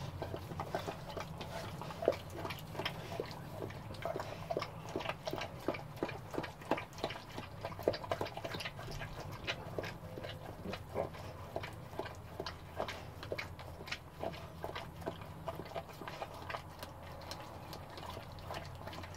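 Xarnego hound bitch licking and cleaning a newborn puppy: a steady run of short wet licking and smacking sounds, over a steady low hum.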